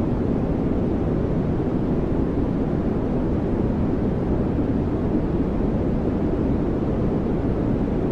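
Steady low rumble of noise with no pitch or beat: a trailer-style rumble sound effect.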